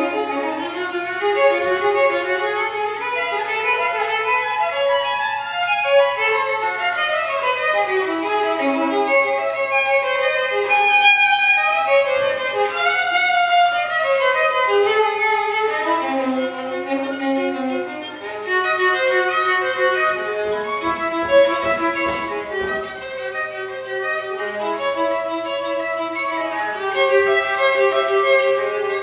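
Solo violin playing an unaccompanied piece: an unbroken line of bowed notes moving up and down in pitch, with a brief softer moment about two-thirds of the way through.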